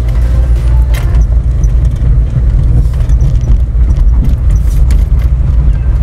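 Car driving down a rough dirt road, heard from inside the cabin: a steady low rumble of tyres and suspension, with scattered knocks and rattles as it goes over bumps.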